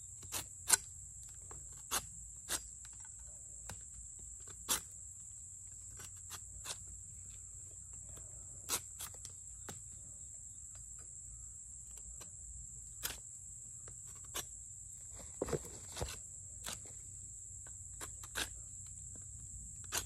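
A machete blade clicking and scraping against a thin wooden stick as it is whittled: irregular sharp clicks, often a second or more apart, sometimes in quick pairs. Under them runs a steady high insect drone.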